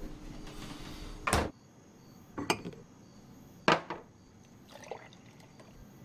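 Kitchen handling sounds: a hard thump about a second and a half in, then two sharp clinks of glass or crockery, with a fainter clink near the end.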